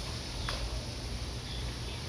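Steady background noise: a low hum and a high, even hiss, with one short click about half a second in.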